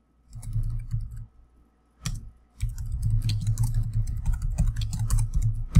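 Typing on a computer keyboard: a short run of keystrokes, a pause with a single tap about two seconds in, then a longer steady run of keystrokes.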